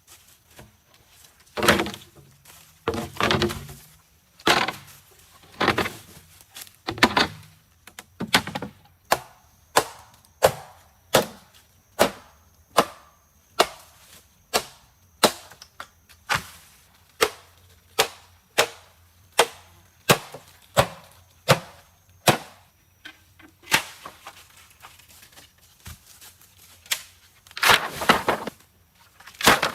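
Wood being chopped: a steady run of sharp strikes, about one and a half a second, with a few longer, rougher splitting sounds in the first several seconds and again near the end.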